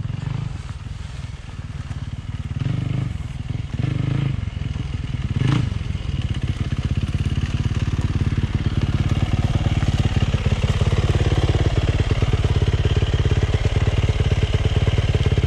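Yamaha YZ450F single-cylinder four-stroke motocross bike coming closer. Its throttle is blipped three times in the first few seconds, then the engine runs at a steady low speed, getting louder.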